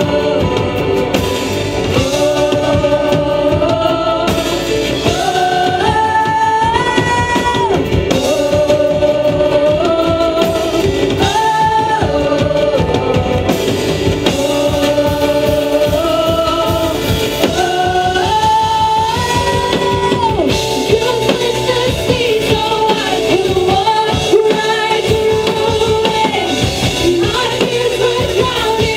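Women singing a worship song into microphones, in long held notes that step up and down, backed by a live band with acoustic guitar and keyboard.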